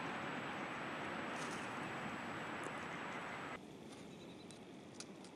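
Steady rushing outdoor background noise that cuts off abruptly about three and a half seconds in, leaving a quieter background with a few faint, short high clicks.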